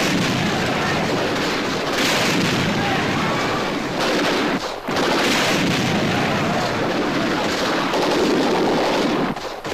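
Battle sound effect: dense, continuous gunfire and blasts, with brief dips in the din about two seconds in, near the middle and near the end.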